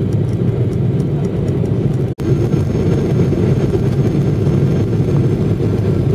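Steady low rumble of engine and airflow noise inside a jet airliner's passenger cabin, on approach to land. The sound cuts out for a split second about two seconds in.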